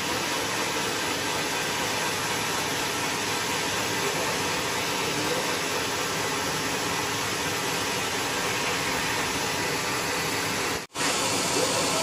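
Sawmill band saw running, a steady hissing machine noise, which drops out for an instant near the end.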